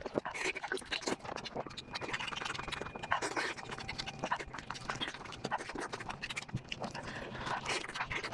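Close-miked chewing and mouth sounds while eating: a dense, irregular run of wet clicks and smacks.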